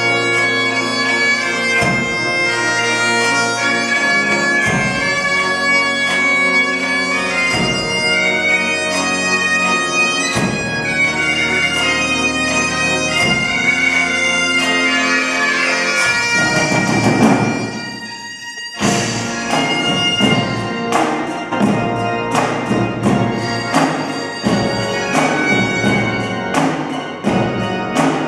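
Highland bagpipes playing a tune with a snare drum beating along. About sixteen seconds in, a drum roll swells and breaks off briefly, and then the drums come back in with strong, rapid strikes under the pipes.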